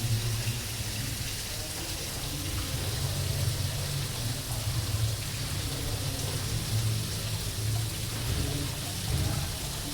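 Aquarium water splashing and trickling steadily, with a low hum underneath.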